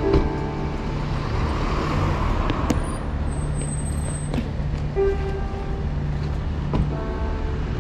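Road traffic noise with a steady low rumble, and a passing vehicle's hiss swelling and fading about one to three seconds in.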